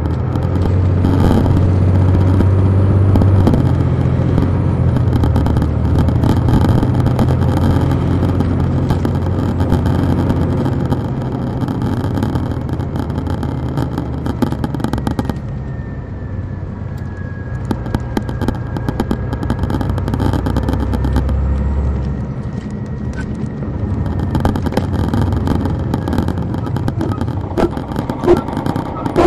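Detroit Diesel Series 60 inline-six diesel of an MCI D4000 coach, heard from the back of the bus, pulling hard in the first few seconds with its pitch stepping as the automatic transmission shifts, then running steadily under load. Later it eases off: it is quieter, with a faint falling whine, and the deep engine note drops away a little past two-thirds of the way through. Body and interior rattles clatter throughout.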